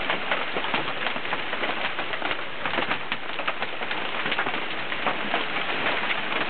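Hail falling hard: a dense clatter of many separate hailstone impacts over a steady rain-like hiss.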